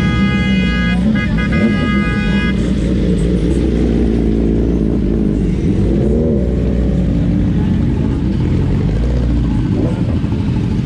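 A crowd of motorcycle engines, superbikes among them, idling and revving together, with a horn held for about two and a half seconds at the start, broken briefly about a second in.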